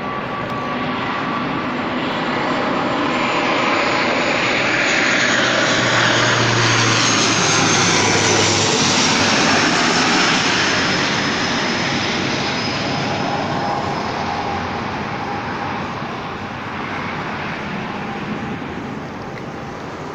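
An airplane passing overhead: a steady roar that swells to its loudest about halfway through and then slowly fades, with a high whine that slides down in pitch as it goes by.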